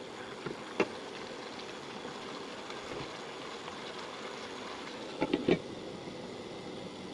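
Chicken pieces sizzling and simmering in sauce in a wok, with a wooden spatula knocking once against the pan just under a second in. About five seconds in, a glass lid clatters onto the wok with three or four quick knocks, and the sizzle is duller after that.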